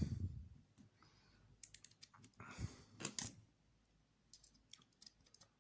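Light clicks and short rustles of small plastic parts and screws being handled during the reassembly of an RC truck.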